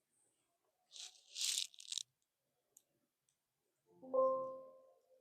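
A brief scratchy rustle about a second in, then a single ringing chime note near the end that fades over about a second.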